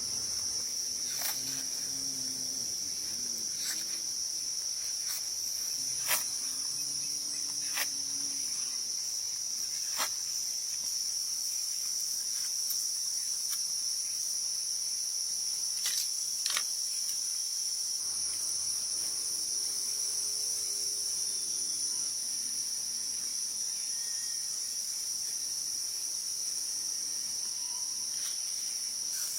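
Insects chirring in a steady, high-pitched drone, with a few sharp clicks scattered through it.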